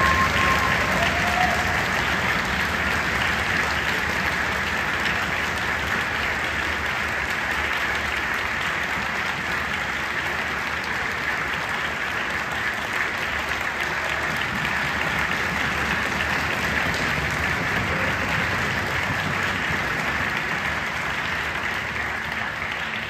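Large concert audience applauding steadily, the applause starting to die away near the end.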